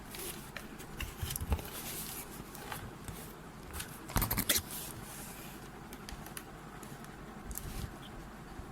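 Hands handling and unwrapping packaging: scattered clicks, rustles and scrapes, with the loudest cluster about four seconds in.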